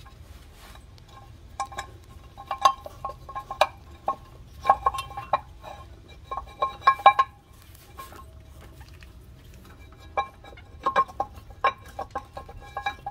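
Metal parts of a spare-tire hoist clinking and rattling against each other and the wheel as its wire and holder are threaded back through the tire. The clinks are sharp and ring briefly, in irregular bunches.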